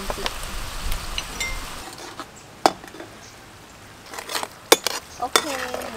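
A metal spoon stirring minced shrimp cooking in liquid in a pan, with sharp clinks of the spoon against the pan: one a little before the halfway point, then a quick cluster in the second half.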